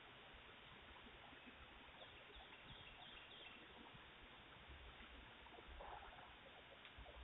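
Near silence: the faint steady hiss of a doorbell camera's microphone outdoors, with a few short, faint high chirps about two to three seconds in.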